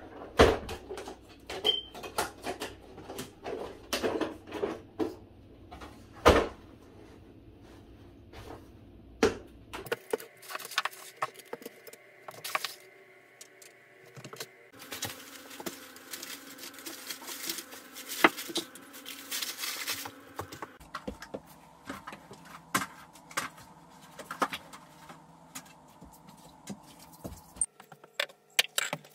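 Small decor items being handled and set down on a cloth-covered table: scattered clicks, knocks and light clinks, with a stretch of rustling in the middle.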